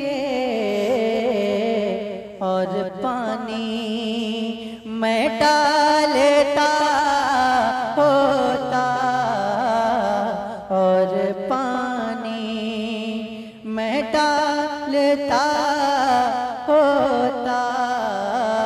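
A man singing a naat verse in long, drawn-out phrases, the pitch sliding and ornamenting between held notes.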